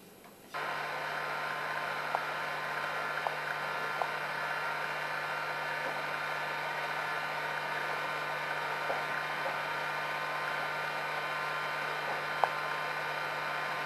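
Industrial gas burner on a rotary drying drum running: a steady hiss with a held low hum and a few faint ticks, cutting in abruptly about half a second in.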